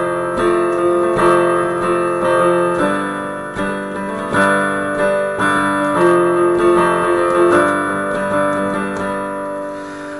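Piano playing an instrumental passage between sung verses: a run of struck chords and single notes, each left to ring, with no voice.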